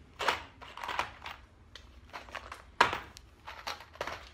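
Small plastic boxes of Kreg pocket-hole screws being handled and set down one after another on a tabletop: a series of short knocks and clicks with softer handling noise between them, the loudest knock nearly three seconds in.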